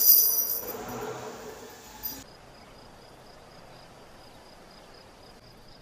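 Faint cricket chirping, a high chirp repeated at an even pace, beginning about two seconds in as the room sound before it cuts out. It is the stock cricket sound used to mark an awkward silence.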